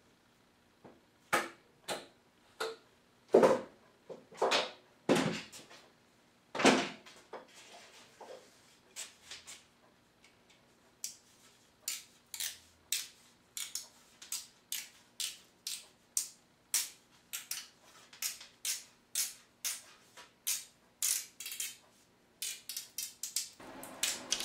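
Bamboo cane being split lengthwise into narrow rod strips with a knife: a series of sharp cracks and clicks. They are louder and irregular for the first several seconds, then come in a steady run of about two a second.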